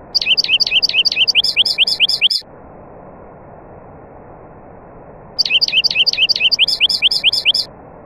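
A songbird sings twice, each time a phrase of just over two seconds made of a rapid run of sharp whistled notes, about five a second. The second phrase begins about five and a half seconds in. Under the song is a steady rushing of falling water.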